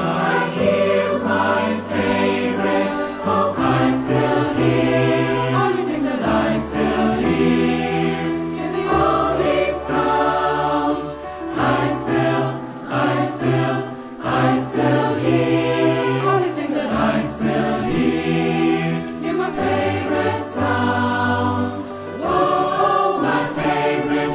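Mixed choir singing a multi-part song with piano accompaniment, sustained chords moving from phrase to phrase.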